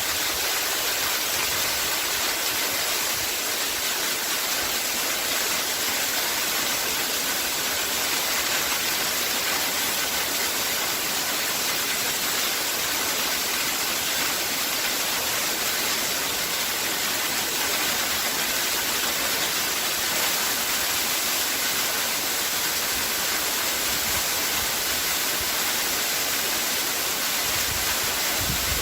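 Waterfall: a steady, unbroken rush of falling water, strongest in the hiss and splash with little deep rumble.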